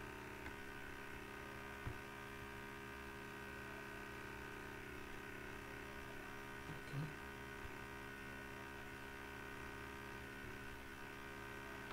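Steady electrical mains hum and buzz with many overtones, with a faint click about two seconds in and a short soft sound near seven seconds.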